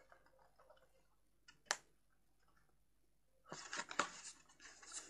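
Cardstock being folded and handled by hand. There is one sharp tap about 1.7 s in, then papery rustling and crinkling from about halfway through, as the card is bent round along its score line.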